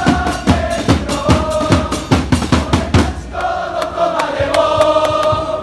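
Football supporters' crowd singing a player chant in unison, backed by steady bass drum beats. The drumming drops away about three seconds in while the crowd holds a long sung note.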